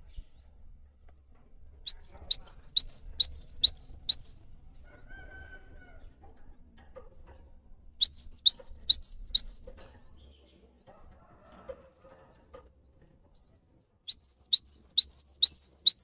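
Cinereous tit (gelatik batu) singing in three bursts of about two seconds each. Each burst is a quick run of high, repeated two-part whistled notes, about three a second.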